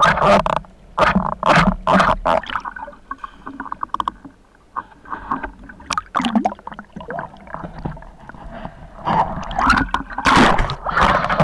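Water splashing and bubbling around the camera in irregular loud bursts, strongest at the start and again near the end, with a quieter stretch between.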